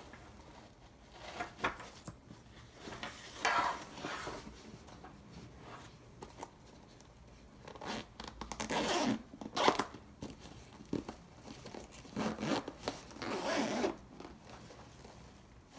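Zipper on an Alienware Vindicator 2.0 laptop backpack being pulled open in several drawn-out strokes, with the rustle of the bag's fabric being handled in between.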